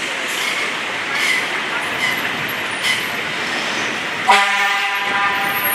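Fire truck running as it moves slowly over wet pavement, with traffic noise, and a single horn toot lasting just under a second about four seconds in.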